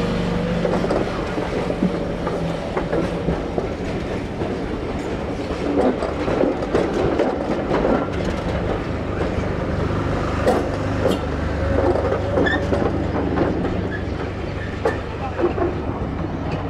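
Passenger coaches of a departing steam-hauled train rolling slowly past close by, the wheels rumbling on the rails with irregular clicks and clanks as they run over the rail joints.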